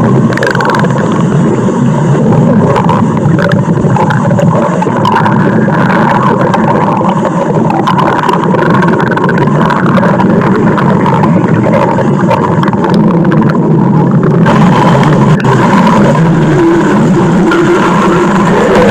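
Stomach growl sound effect: a loud, unbroken rumble that runs at a steady level, its texture brightening slightly about fifteen seconds in.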